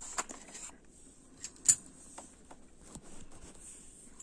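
Light clicks and clinks of vintage metal dress and shoe clips being handled and set down against one another, with one sharper click about one and a half seconds in.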